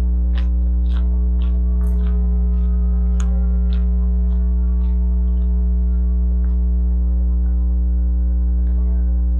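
Overhead high-voltage power lines giving a loud, steady electrical hum, a low drone with many overtones. Footsteps tick about twice a second through the first few seconds.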